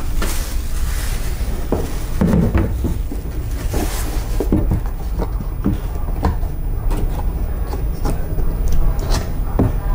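Packaging being handled: a plastic bag rustling as a drill is drawn out of it, then a cardboard box being folded shut, with scattered taps and knocks over a steady low hum.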